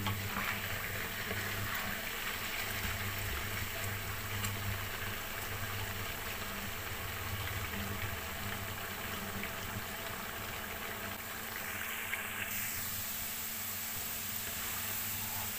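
Diced potatoes frying in hot oil in a pan: a steady sizzle and bubbling of the oil.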